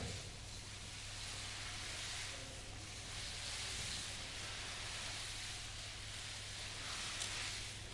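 A rushing hiss that swells and fades again and again, about every second and a half, over a steady low hum.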